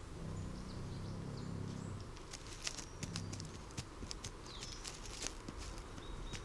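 Wood bison grazing: a low, drawn-out grunt for about the first two seconds, then scattered sharp clicks and rustles as grass is cropped and trodden. Faint bird chirps sound high above.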